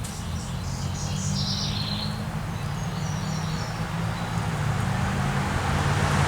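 A motor vehicle's engine hum, growing gradually louder as it approaches, with small birds chirping briefly in the first half.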